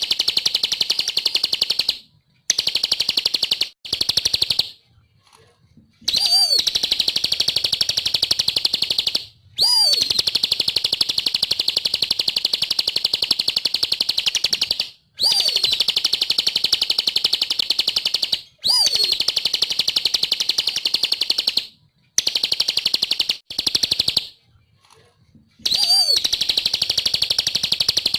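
Ciblek (bar-winged prinia) in full song: long, rapid, high trilling phrases lasting one to five seconds, each opening with a quick swooping note, repeated about ten times with brief pauses between them.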